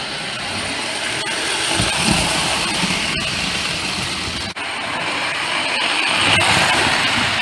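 Prewar Lionel 249E toy steam locomotive running fast on a tinplate layout, pulling freight cars: its electric motor whirring and the wheels clattering on the track in a steady rushing noise. The sound drops out for an instant about four and a half seconds in.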